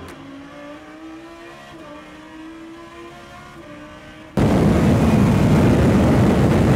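A fainter steady hum with a slowly rising tone, then about four seconds in an abrupt jump to the loud, dense noise of the Lamborghini Huracán Super Trofeo Evo race car at speed, heard from inside its unsilenced cabin. The in-car sound has no clear engine note and is dominated by engine, wind and road noise.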